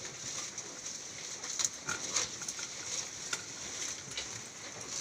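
Young Murrah buffalo heifer moving and breathing close by: irregular soft noises with a few short, sharp clicks.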